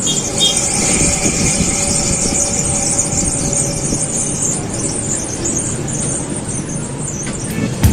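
Crompton cooler motor running steadily with a high-pitched chee-chee squeal from its bearing, the sign of a worn bearing that needs changing.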